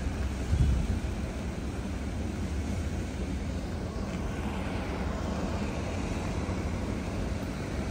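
Wind buffeting the microphone: a steady low rumble with a stronger gust about half a second in.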